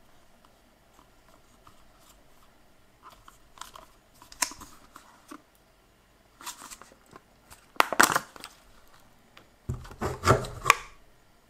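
A hard plastic snap-on lid being handled and pulled off a plastic drink cup: scattered clicks and crackles, the loudest bursts about eight and ten seconds in.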